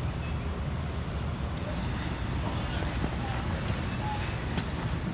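Outdoor ambience: short, high chirps that fall in pitch, a few times at irregular intervals, like small birds, over a steady low rumble.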